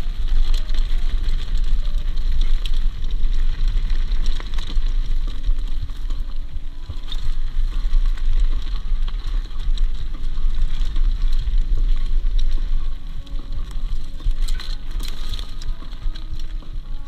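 Mountain bike riding fast down a rocky dirt trail: a constant low wind rumble on the microphone with a crackle of tyres on gravel and rattling clicks from the bike over rough ground.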